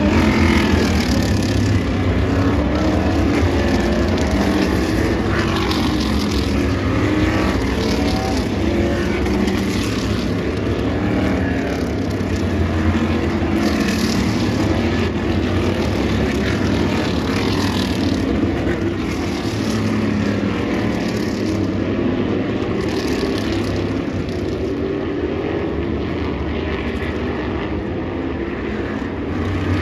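Several Tour Modified race cars' V8 engines running at low speed as the cars roll by in a line, their engine notes overlapping and wavering up and down in pitch.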